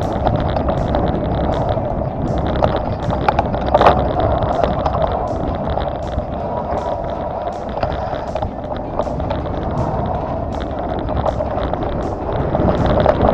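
Off-road vehicle driving over a rough trail: steady engine and road noise with repeated sharp clicks and rattles.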